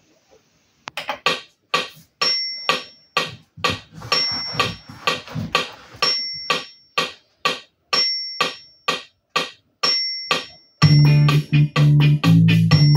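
Digital keyboard's built-in rhythm pattern starting about a second in: a steady beat of brushy percussion strokes, about three a second, with a short high tone recurring every two seconds or so. Near the end, loud bass notes and keyboard chords come in over the beat.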